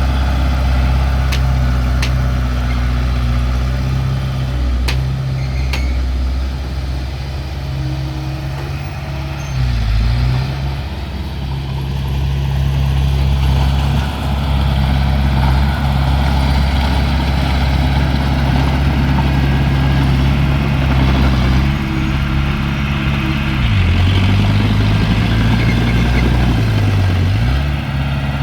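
Heavy-equipment diesel engine running steadily under load, its speed dipping briefly and recovering about a third of the way in and twice near the end.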